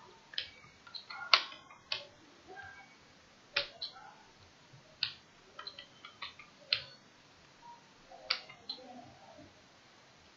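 Keys clicking on a computer keyboard as a short password is typed, about a dozen single sharp clicks at an uneven pace.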